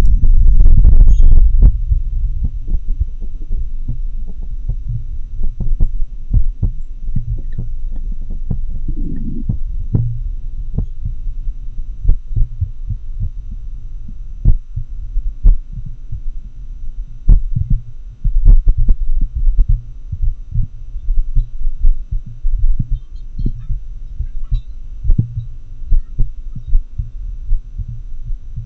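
Heart sounds of a heart in atrial fibrillation, picked up through a homemade funnel microphone: low thuds at an irregular, uneven rhythm over a steady low hum. A loud low rumble fills the first couple of seconds.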